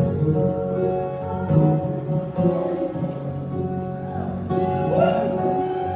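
Acoustic guitar playing a live song, with held notes and some gliding pitches.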